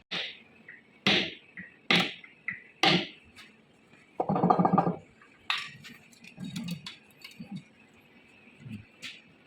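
Four sharp metal strikes about a second apart, then a short rattling burst a little before the middle, followed by scattered lighter clinks of metal parts.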